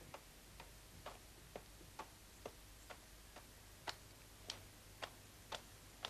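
Faint, even ticking, about two ticks a second, growing louder in the second half: a clock-like tick used to build suspense in the cartoon's soundtrack.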